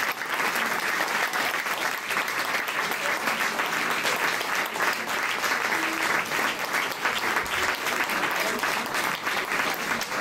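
Audience applauding steadily, many hands clapping, with a few voices mixed in.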